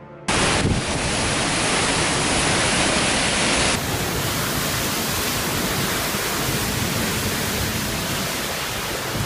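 Hurricane-force wind and driving rain, a dense, steady rush with rumble on the microphone. The sound starts abruptly and shifts in character a little about four seconds in.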